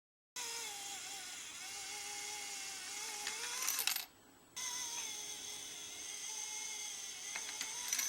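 The Casting Furnace mechanical bank's small motorised mechanism whirs twice, each run lasting about three and a half seconds with a slightly wavering pitch. Each run ends in coins clinking as they drop into the bank.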